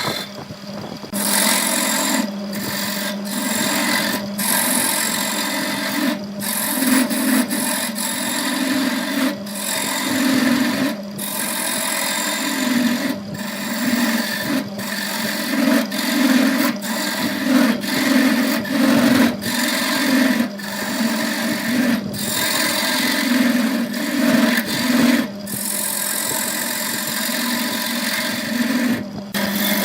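Wood lathe running with a steady motor hum while a turning tool works the spinning wood, the rough scraping noise breaking off briefly every second or two between passes.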